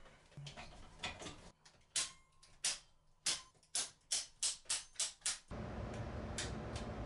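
A run of about a dozen sharp clicks, a second or so apart at first and coming faster toward the end. About two thirds of the way through they stop and a steady low hum sets in.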